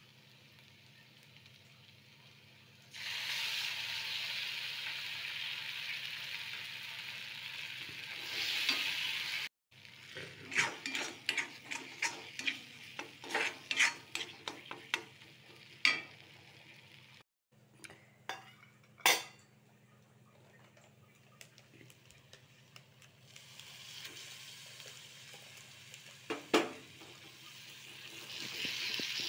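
Cashew paste sizzling in hot oil in a cast-iron kadai, then a steel spatula scraping and clacking against the pan as the masala is stirred, in a quick run of sharp knocks. Sizzling rises again near the end as spinach paste goes in.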